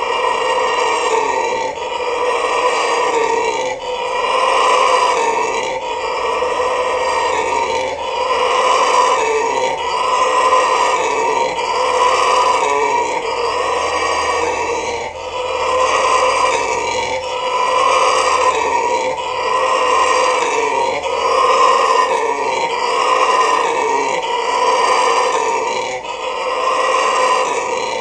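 Red howler monkey howling: a loud, continuous roaring that swells and falls back about every second and a half.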